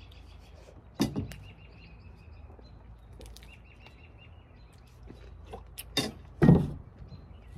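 Birds chirping in short repeated high calls, with sharp knocks or clinks about a second in and twice around six seconds; the last knock is the loudest.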